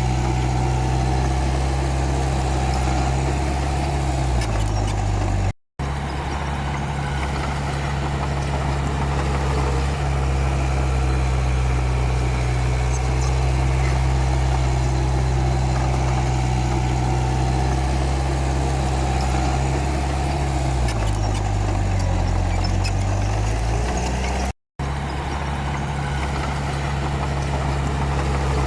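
Komatsu D31P bulldozer's diesel engine running steadily. Its pitch sags twice, briefly near five seconds and for a few seconds past twenty, then picks back up. The sound cuts out for an instant twice.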